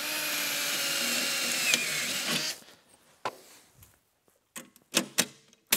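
Cordless drill running under load, drilling into the metal of a snowmobile running-board bracket for about two and a half seconds, with a slight dip in pitch near the end. It is followed by a few light clicks and taps.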